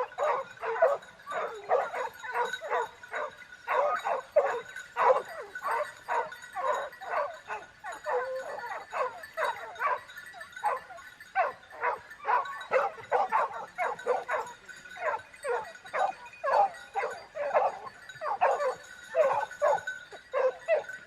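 Dog barking and yapping over and over in quick succession, with no let-up.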